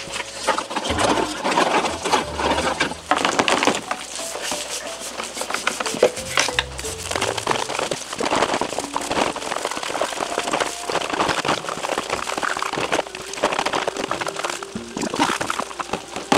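A stiff nylon scrub brush scrubbing plastic scooter body covers in a tub of soapy water, with a steady run of rapid scraping strokes and sloshing. Light background music plays underneath.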